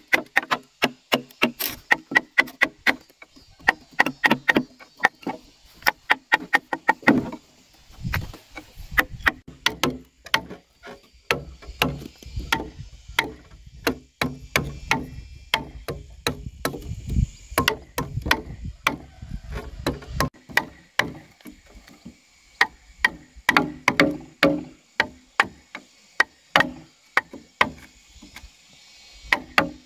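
Repeated hand-tool chopping strikes into a wooden pole, cutting a hole in it. The strikes are sharp and irregular, several a second. They thin out in the middle while a low rumble runs, then pick up again near the end.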